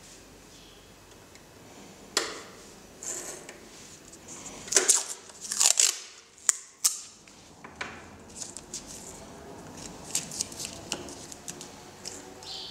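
Irregular clicks, scrapes and knocks of hands handling a turntable's tonearm and headshell, with a roll of adhesive tape. The sharpest cluster comes a little before the middle.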